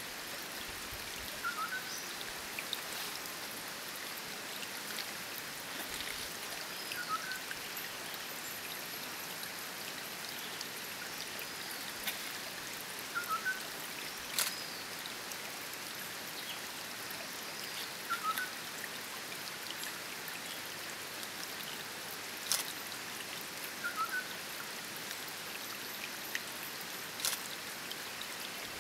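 Steady hiss of a small stream or trickle of water running over stones. A short two-note call repeats about every five or six seconds, with scattered sharp ticks and a few brief higher chirps.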